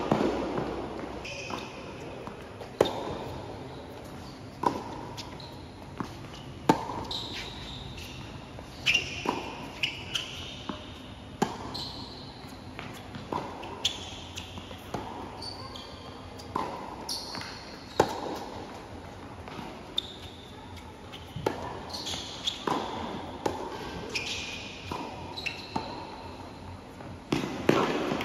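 Tennis rally on a hard court: racket strings striking the ball and the ball bouncing, a sharp hit every second or two, mixed with short high squeaks of shoes on the court.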